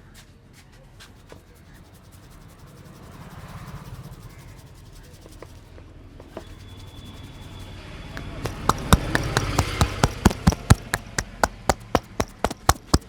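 Indian head massage: hands rubbing over the scalp and hair, then rhythmic percussive tapping on the head with the hands, about three to four sharp strikes a second, starting about two-thirds of the way in and becoming loud.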